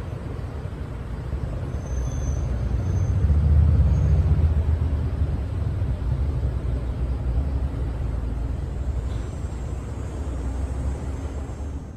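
Low rumble of a motor vehicle's engine and road noise, swelling about four seconds in and then easing back.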